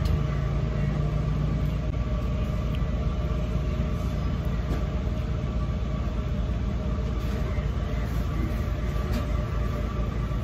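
Steady low rumble of a running motor with a constant hum over it, and a few faint clicks now and then.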